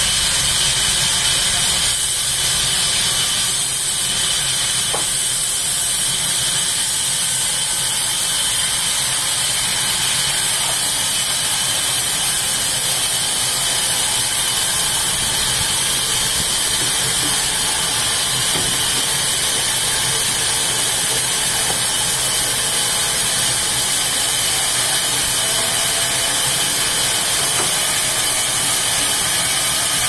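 Horizontal band sawmill running, its blade cutting lengthwise through a log. It makes a loud, steady, high hiss with no breaks.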